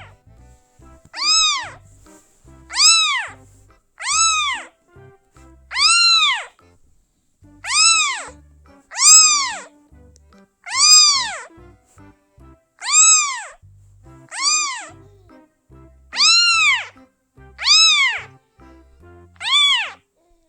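A kitten meowing over and over, about a dozen high-pitched meows roughly one and a half seconds apart, each rising and then falling in pitch.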